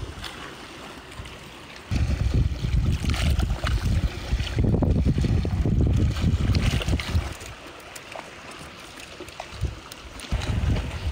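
Wind buffeting the microphone in gusts: a rough low rumble that comes in about two seconds in, eases off after about seven seconds, and picks up again near the end.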